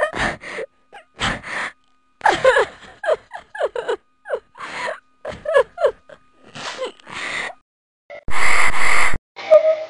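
A girl's voice gasping in short breathy catches and brief high 'ah' sounds that bend up and down as a sneeze builds, then one loud sneeze lasting nearly a second about eight seconds in.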